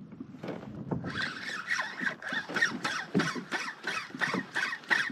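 Spinning reel cranked quickly while jigging, a steady rhythmic clicking of about four strokes a second that starts about a second in.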